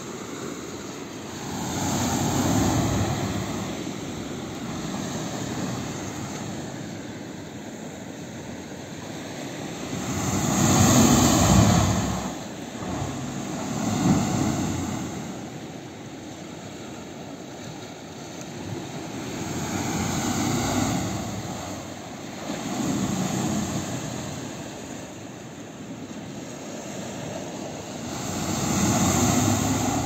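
Ocean surf washing over a rock shelf, swelling loud and ebbing every few seconds, loudest about a third of the way in.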